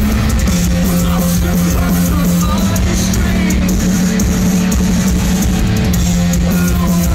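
A metalcore band playing live, loud: distorted electric guitars and bass hold low, heavy notes over a drum kit.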